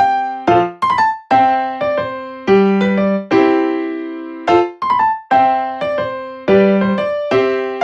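Background music: a bright piano-like keyboard playing a bouncy repeated chord pattern, each note struck and decaying, about one chord a second.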